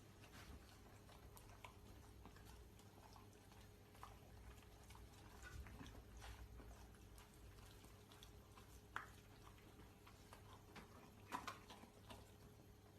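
Near silence: faint, scattered clicks and taps over a low, steady hum. There is a slightly sharper click about nine seconds in and a small cluster of them about eleven and a half seconds in.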